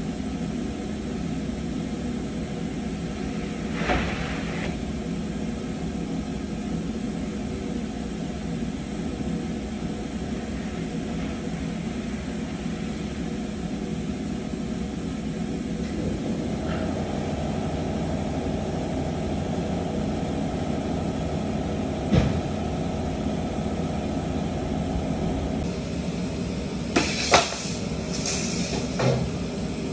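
Steady drone of woodworking machinery and dust extraction in a panel-processing shop. A steady mid-pitched whine from the machine comes in about halfway through and stops about ten seconds later. A few sharp knocks, like panels or boards being handled, come near the end.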